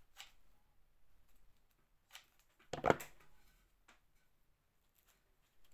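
Quiet handling sounds of hot-gluing a fabric flower in place: scattered soft clicks and rustles from a hot glue gun and the fabric, with one louder knock about three seconds in.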